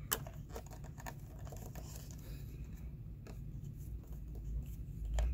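Faint scratching and scattered small clicks of a Phillips screwdriver turning the set screw that secures the waterproof cap on a plastic marine navigation lantern.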